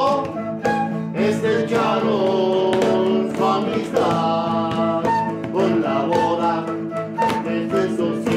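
Live acoustic music: a quena (Andean end-blown flute) plays a gliding melody over a rhythmically strummed acoustic guitar.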